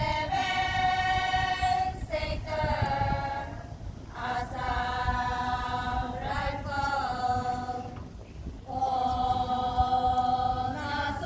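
A group of voices singing together unaccompanied, holding long notes in phrases of a few seconds with short pauses for breath between them: a song sung in honour of a guest.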